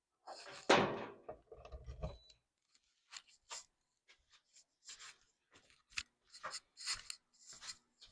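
Hands working on a jointer-planer's parts during setup: scattered light clicks, taps and rubs of plastic and metal, with one louder knock and a short rumble about a second in.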